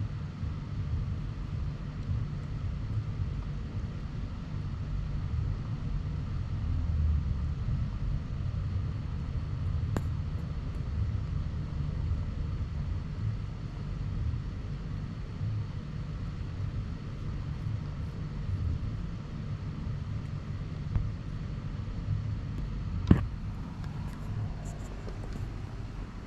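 Steady low outdoor rumble, with a sharp click about ten seconds in and a louder click near the end.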